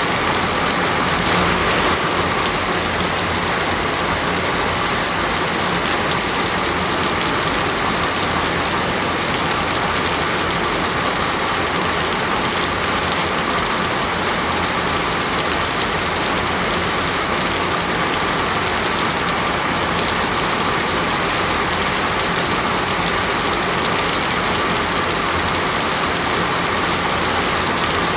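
Heavy rain falling steadily: a dense, even hiss that does not let up, with a faint steady tone beneath it.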